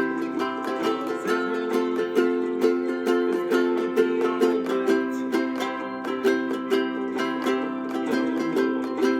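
Ukulele strumming chords in a steady, even rhythm of several strokes a second.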